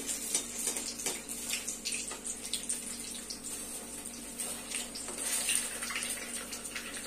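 Gul paneer balls deep-frying in hot oil in an iron kadhai, put back in for a second fry until deep brown: a steady sizzle with constant fine crackling.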